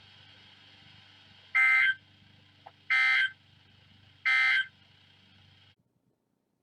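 Emergency Alert System end-of-message data bursts: three short, identical buzzy tone bursts about a second and a half apart, closing a severe thunderstorm warning broadcast. Faint receiver hiss and hum sit behind them and cut off near the end.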